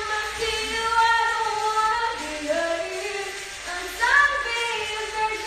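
A young woman singing a pop song live into a handheld microphone, holding and sliding between notes.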